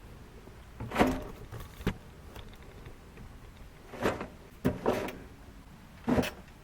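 Shovels digging into soil: about six short scraping strikes of the metal blades at an irregular pace.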